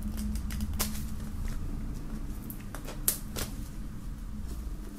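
Utility knife slitting and picking at the plastic shrink-wrap on a cardboard CD sleeve: scattered crinkles and sharp clicks of the film, the loudest a pair about three seconds in. A steady low hum runs underneath.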